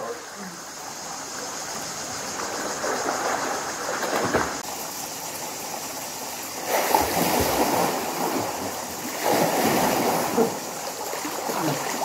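Water splashing and lapping as people swim in a rock pool, with louder bouts of splashing about seven and nine seconds in.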